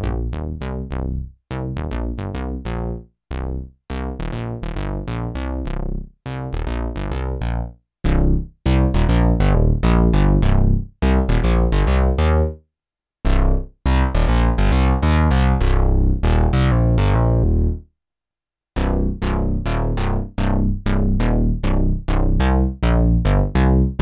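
Sequential OB-6 analog polyphonic synthesizer playing a bass line: a rhythmic run of short, punchy bass notes, each bright at its start and quickly dulling. The line gets louder about eight seconds in and breaks off for a moment about three quarters of the way through before picking up again.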